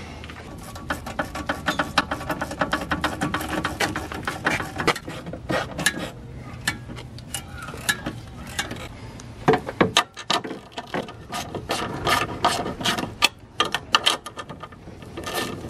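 Hand socket ratchet clicking in quick runs of rapid ticks as nuts are run down on the front coilover's mounting bolts.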